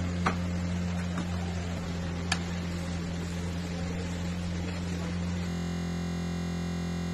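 Steady low hum and hiss of kitchen background noise, with a sharp click of a metal spatula against a steel tray and another about two seconds later. About five and a half seconds in, the sound turns into a flat, unchanging drone.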